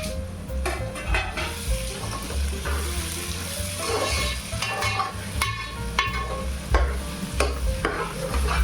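Onion sizzling as it fries in hot oil, being stirred, with irregular clicks of the spatula against the pan.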